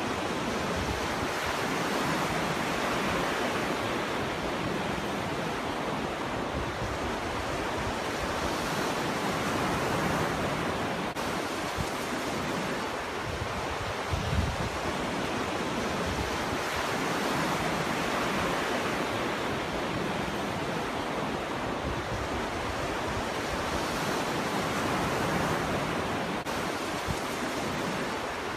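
Ocean surf: waves breaking and washing in a steady rush that swells and eases every several seconds. A short low thump of wind on the microphone about halfway through.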